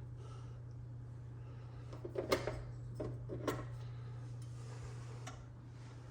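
A steady low hum with several short, light clicks and knocks, clustered between about two and three and a half seconds in and one more near five seconds.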